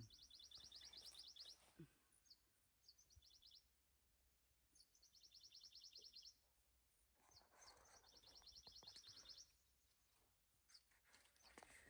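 Faint bird trill: a fast run of high, even notes, repeated four times with short pauses between.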